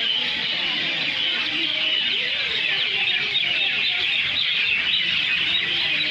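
A crowd of small birds chirping all at once in a dense, unbroken chatter, with lower clucking calls, likely from fowl, mixed in.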